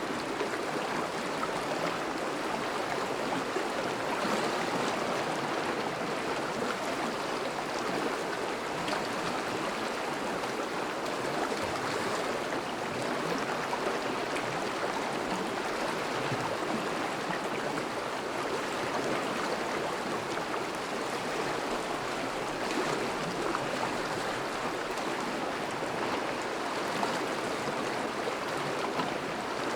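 Thawing river current flowing and rushing over ice and stones, a steady even water noise.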